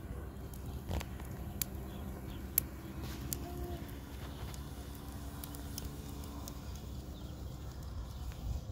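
Wood fire crackling under a kettle in an open clay hearth: scattered sharp pops over a low steady noise, the sharpest pop about two and a half seconds in.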